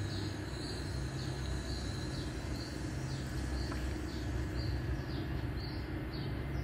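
A bird chirping over and over, short high falling notes about twice a second, over a steady low background hum.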